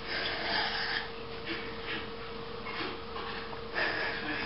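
A cat breathing and snuffling close to the microphone in several short puffs as it bites at a dangling string, over a steady faint hum of a television in the background.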